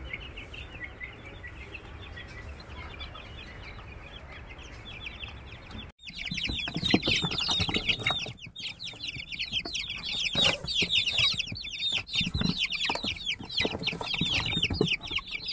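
A box full of young aseel chicks peeping loudly and without pause: many rapid, high, falling chirps overlapping. Before that, about six seconds in, there are only faint chirps over a low hum.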